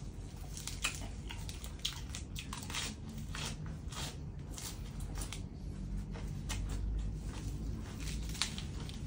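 A person chewing mouthfuls of crisp fresh lettuce leaf wrapped around spicy shrimp larb, with many small sharp crunches and crackles close to the microphone.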